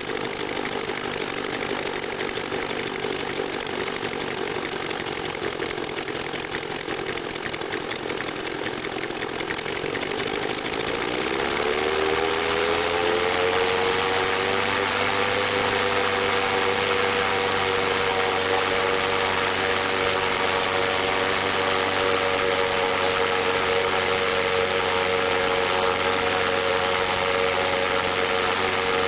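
Hand-built 9-cylinder model radial engine running and turning its propeller. About ten seconds in it speeds up, its pitch rising over two or three seconds, then it holds steady at the higher speed.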